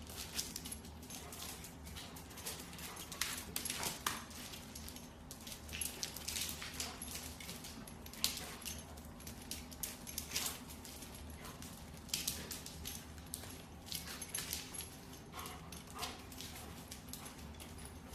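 Dalmatian's claws clicking and scrabbling on a hardwood floor as it dashes and pounces after a laser dot: quick irregular clicks and skitters.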